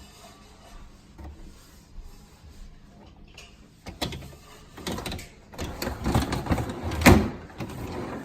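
Samsung refrigerator's pantry drawer being slid and pushed shut, with rattling and knocks from about four seconds in and a sharp knock about seven seconds in.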